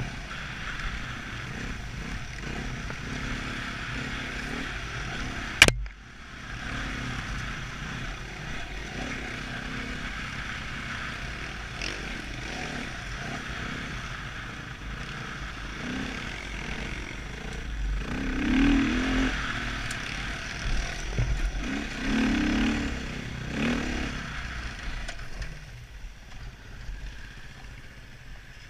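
Dirt bike engine running while riding, with a steady rush of wind and rattle of the bike. A single sharp knock comes about six seconds in, and the engine swells louder twice, around eighteen and twenty-two seconds in.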